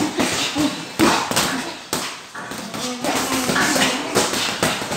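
Boxing gloves landing punches during sparring: a string of sharp smacks at an uneven pace, several a second at times, with short vocal sounds in between.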